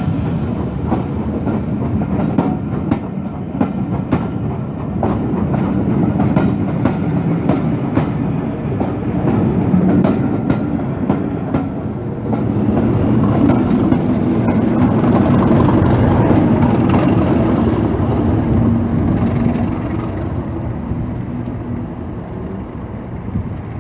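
A train of passenger coaches rolling past at close range: a heavy rumble with repeated sharp clicks of wheels over rail joints. The train grows louder about halfway through and then fades as it moves away near the end.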